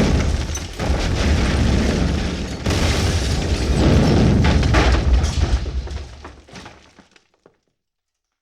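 Explosion sound effect: a heavy blast with a deep rumble and crackle, surging again about a second in and near three seconds in, then dying away about seven seconds in.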